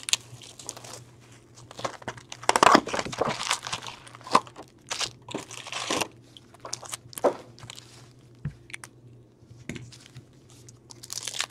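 Hockey card pack wrappers and box packaging being torn open and crinkled, in irregular rustling and crackling bursts.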